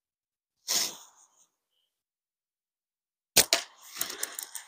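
A slingshot shot about three and a half seconds in: sharp snaps as the released bands and pouch fire the steel ball and it strikes the target, followed by a brief clatter. A short rustle of the bands and pouch being handled comes about a second in.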